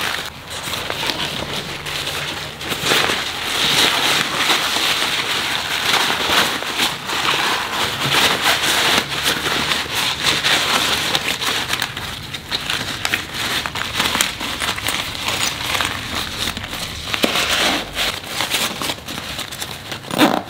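A thin, light, smooth drawstring bag being crumpled and stuffed into its own small zippered pouch: continuous crinkling and rustling of synthetic fabric handled by hand.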